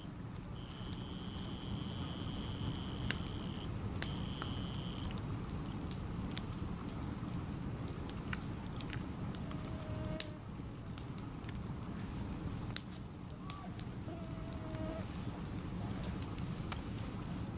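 Bonfire of a burning wreath and camp chair burning steadily, with a low rush and scattered sharp pops and crackles. A steady high insect trill runs behind it.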